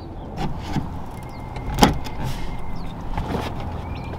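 Plastic carpet retaining tabs being pried out of a car's rear deck trim: a few scattered clicks and knocks, the sharpest just under two seconds in, over a steady low hum.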